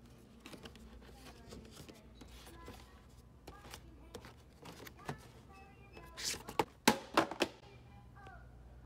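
Boxed action figures being handled on a store shelf: faint rustles and taps of cardboard-and-plastic packaging, then a cluster of loud clacks and knocks about six to seven and a half seconds in as a figure box lands on the tile floor.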